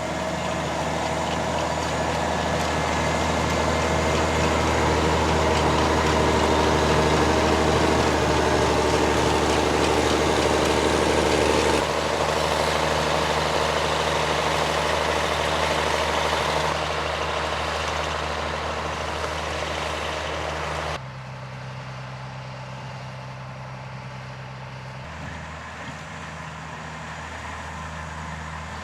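Cebeco ZA 215 EH self-propelled sugar beet harvester running, its six-cylinder DAF diesel engine humming steadily under the noise of the machinery. The sound changes abruptly twice, about twelve and twenty-one seconds in, and is quieter after the second change.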